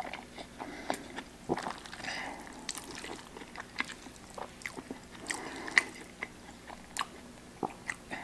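Mouth sounds of someone eating creamy vegan carbonara noodles: wet chewing with many small, sharp smacks and clicks.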